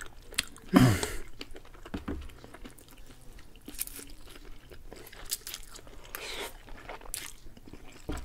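Close-miked eating of vermicelli with cheese: wet chewing, mouth smacks and noodles being slurped in from forks, with one louder sound about a second in.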